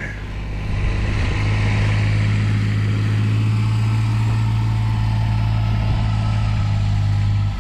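A vehicle engine running steadily with a low hum, growing louder about a second and a half in.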